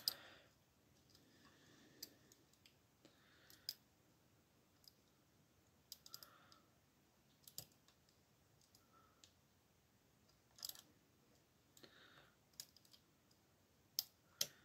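Faint, scattered clicks and scrapes of a metal lock pick working inside a Yale TS007 euro cylinder held under tension, nudging its sliders into place.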